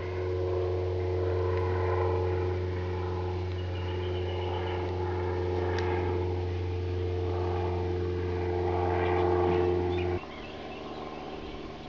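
A motor running steadily with a low hum, cutting off suddenly about ten seconds in.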